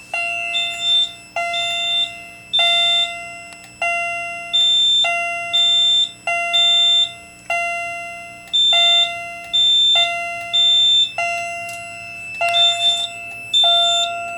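Wheelock CH70 chime strobe's chime sounding a fire alarm on a Kidde FX-64 panel, striking over and over with each ring dying away. A high-pitched electronic beep sounds on and off alongside it.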